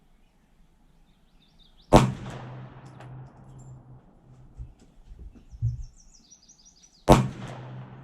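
Two 9mm pistol shots from a Glock 17 Salient, about five seconds apart, each with a short echoing tail. A dull low thump comes shortly before the second shot, and birds chirp in between.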